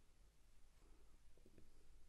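Near silence: room tone, with a few faint soft taps about one and a half seconds in.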